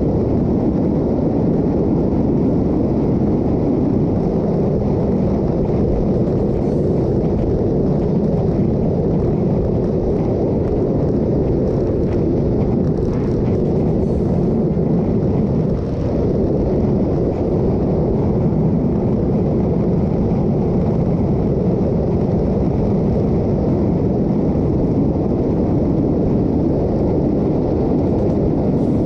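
Steady wind rush buffeting the microphone, mixed with road and engine noise, from a motorcycle riding at highway speed of around 90–100 km/h.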